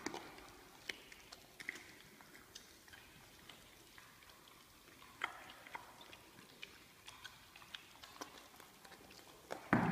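Lion cub chewing as it eats, a faint, irregular scatter of short clicks and smacks, with one louder noise right at the end.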